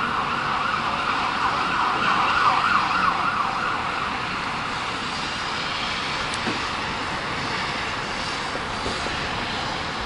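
A siren warbling rapidly up and down, fading out about four seconds in, over steady street noise.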